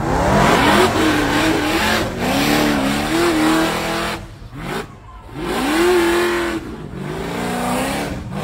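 Classic Chevrolet donk on oversized rims doing a burnout: the engine is revved hard again and again, its note climbing and falling several times, over the noise of spinning, squealing tyres. It drops off briefly twice about halfway through.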